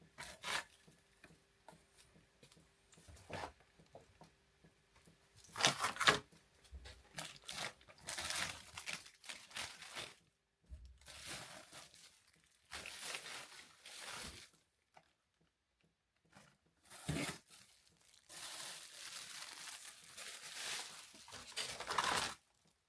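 Plastic bags and frozen-food packaging crinkling and rustling in irregular bursts as items are taken out of a chest freezer.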